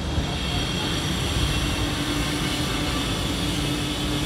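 Steady mechanical hum with a held low tone and a high hiss, over street noise.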